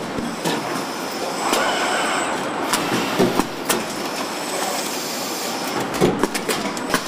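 A moving vehicle running steadily, with frequent sharp clicks and rattles over the noise and a faint high whine now and then.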